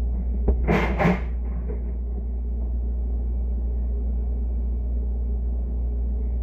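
Refrigerator running, a steady low hum heard from inside the closed fridge, with a short double scuffing noise about a second in.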